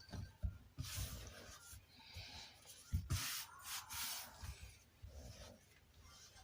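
Stiff noodle dough being worked by hand: a few rubbing, scraping strokes with soft thumps.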